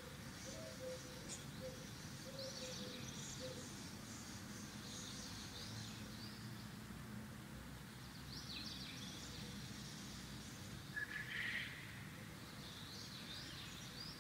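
Birds chirping in short calls every few seconds over a low steady background hum; the loudest call comes about eleven seconds in.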